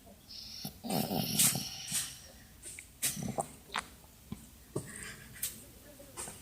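Snoring: rough, growl-like snores, the longest about a second in with a thin high whine over it, a shorter one around three seconds in, and a few faint clicks between.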